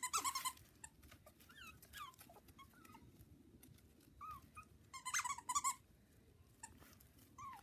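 Havanese puppies yipping and whimpering in short, high-pitched squeals as they play, with a cluster near the start and another about five seconds in.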